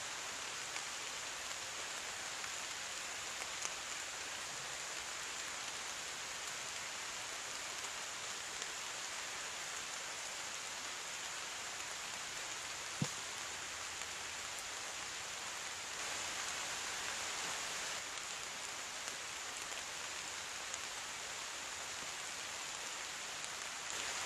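Steady rain falling in the woods, an even hiss of drops, with a single sharp tick about halfway through.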